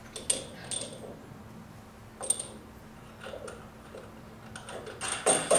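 A few light, scattered clicks and taps of metal and plastic parts being handled as a support tool is fitted under a waterjet pump's high-pressure cylinder and its threaded knob is worked by hand, over a faint steady hum.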